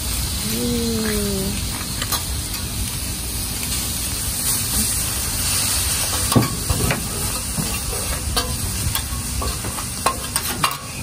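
Lobster tails sizzling on a hot teppanyaki flat-top griddle. Several sharp clicks and scrapes from the steel spatula and fork on the griddle come in the second half as the meat is cut from the shells.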